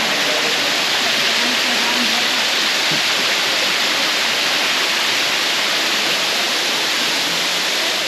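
Tiered waterfall pouring over rock close by: a loud, steady rush of falling water.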